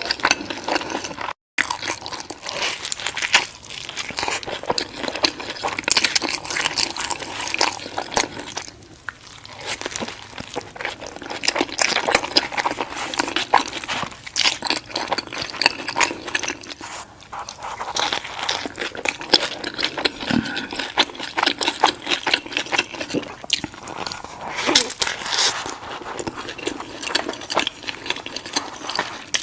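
Close-miked chewing and biting of a burger sandwich: steady wet mouth sounds and crunchy clicks, with a brief cut to silence about a second and a half in.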